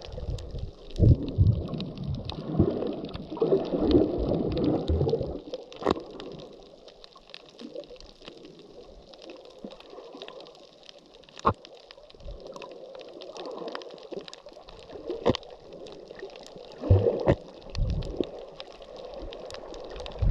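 Muffled underwater sloshing and gurgling from a submerged camera, with a few scattered sharp clicks. The sloshing swells in the first few seconds and again near the end.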